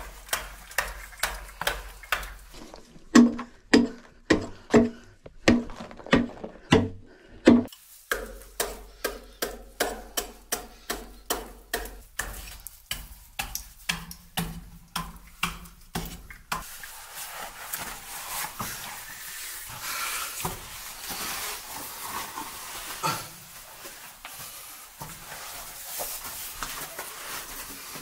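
Soft stone being cut with a hand adze, at about two blows a second, each a sharp chopping knock into the block. The blows are heaviest a few seconds in. After about 16 seconds the blows stop and a rough, gritty scraping and rustling takes over.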